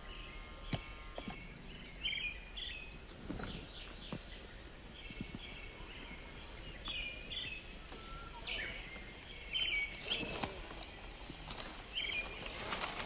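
Small birds chirping repeatedly in woodland, with scattered clicks and crunches of small stones under a scale RC crawler's tyres, busier near the end.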